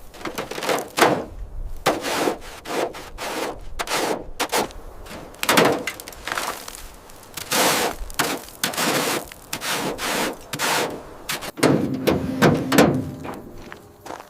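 An irregular run of hard knocks, bangs and scraping noises, several a second, with a brief pitched hum among them near the end.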